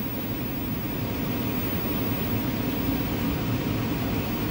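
Steady background rushing noise, heaviest in the low range, with no distinct events.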